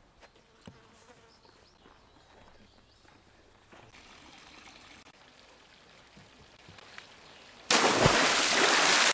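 A big splash in a pond: a sudden loud rush of water breaks in about three-quarters of the way through, with a low thud just after, then the spray pours back down and begins to fade. Before it, only faint outdoor ambience with a light trickle of water.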